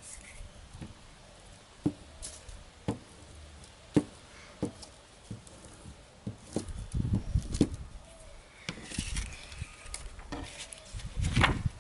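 Glue stick being rubbed over a sheet of paper on a wooden table: light sharp taps about once a second, then duller knocks and paper handling in the second half.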